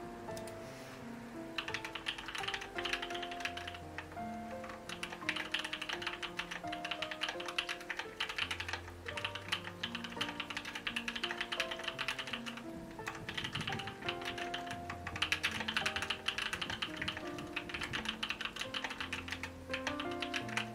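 Mechanical keyboard typing: a Noxary Valhalla with Gateron Cream Soda switches on a 5 mm polycarbonate plate, typed on quickly and steadily from about a second and a half in, with a couple of short pauses. Soft background music with held notes plays underneath.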